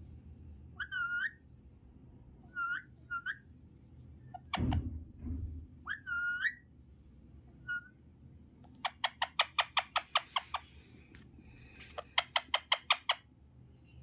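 Young parakeet giving short rising whistled chirps, then two quick runs of rapid chattering calls, about eight a second, in the last third. A muffled low bump sounds a little before halfway.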